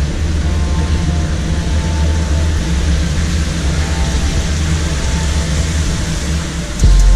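Steady low rumble of background noise. Music comes in suddenly near the end.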